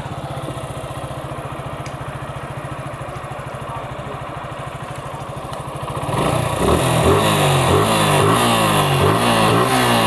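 A 2020 Suzuki Gixxer FI's single-cylinder engine idles evenly, just after its tappet (valve) clearances have been reset. About six seconds in it is revved with a series of quick throttle blips, rising and falling in pitch and louder than the idle.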